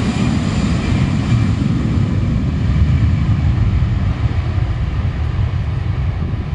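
Airbus A319 twin jet engines rumbling at takeoff power as the airliner climbs away, a deep steady roar whose higher hiss gradually fades.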